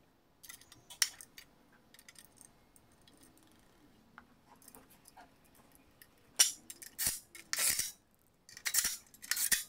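Steel bolts and small metal parts clinking and clattering as they are handled and picked from a tub: a few light clicks at first, then a run of louder metallic clatters in the last few seconds.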